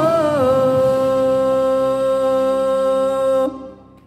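A man singing one long held note in Swedish. The pitch slides down at the start, then holds steady, and the note stops abruptly about three and a half seconds in. It is the close of the song.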